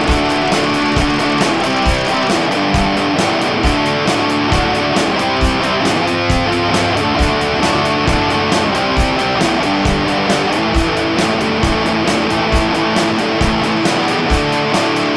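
Background rock music with electric guitar over a steady drum beat.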